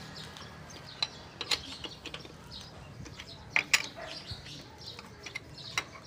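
Steel lug wrench clicking and clinking on the lug nuts of a Toyota Fortuner's alloy wheel as they are tightened fully, in scattered sharp taps, the loudest pair about three and a half seconds in.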